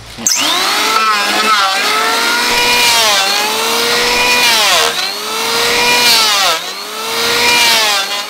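Electric hand planer running and planing a wooden plank. Its motor pitch drops sharply and climbs back about every one and a half seconds as the cutter bites into the wood.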